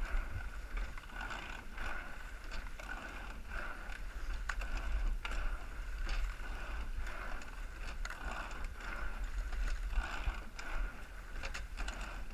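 Eight-oared rowing shell under way at race pace: oars clacking in their oarlocks and seats rolling on their slides with each stroke, roughly every two seconds, over a steady rushing noise and low rumble.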